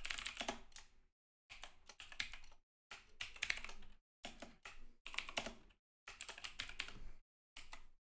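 Typing on a clicky computer keyboard: runs of rapid keystrokes in several bursts, with brief pauses between them.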